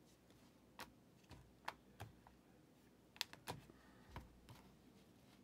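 Near silence broken by faint, irregular light clicks and taps of trading cards and a plastic card holder being handled on a table.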